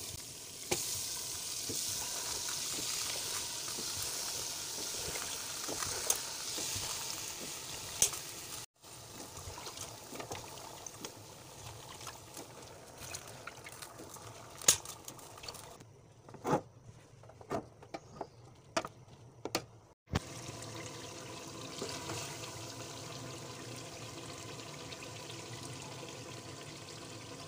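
Spiced masala sizzling in a pot on the stove, with clicks and knocks from a ladle against the pot as cubed potatoes and aubergine are added and stirred in. The sizzle drops to a quieter stretch with scattered knocks about a third of the way in, then comes back steady for the last several seconds.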